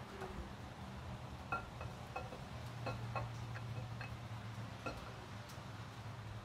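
Camshaft being slid by hand out of a GM 6.0-litre LQ4 V8 block, its lobes and journals giving scattered light metallic clinks and ticks against the cam bearings, over a steady low hum.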